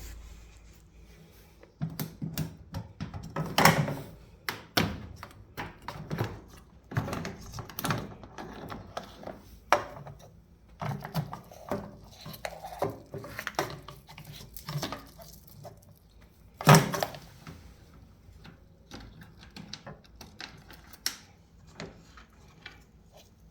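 Irregular clatter of things being handled: clicks, knocks and scraping, starting about two seconds in, with two louder thuds, one near the start and one about two-thirds of the way through.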